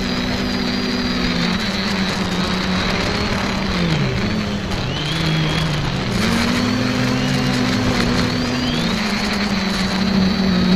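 Quadcopter's electric motors and propellers humming in flight. Several low tones slide up and down separately as the motor speeds are varied to steer and hold the craft, over a high whine and a rushing noise.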